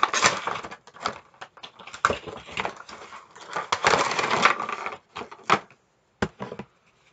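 A cardboard Funko Pop window box being opened and its clear plastic insert pulled out: rustling, scraping and clicking, busiest for the first five seconds, then a couple of sharp clicks before it goes quiet.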